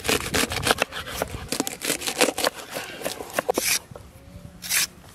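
Kitchen knife cutting through a bundle of green beans on a wooden board: a quick run of crisp cuts for about three and a half seconds. Then, near the end, a short scrape of a knife peeling a carrot.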